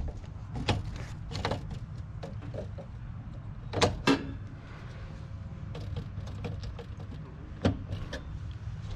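Sharp clicks and knocks of hand tools and metal parts being handled, a handful scattered through, the loudest pair about four seconds in, over a steady low rumble.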